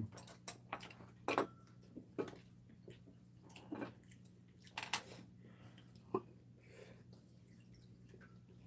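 Metal chopsticks and a spoon clicking and tapping against ceramic bowls and plates during a meal, with some chewing. The clicks are scattered and light, the loudest about five seconds in, over a faint low steady hum.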